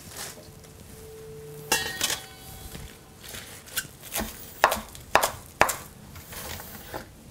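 Chef's knife chopping kale leaves on a wooden cutting board: a run of uneven knife strikes starting about two seconds in.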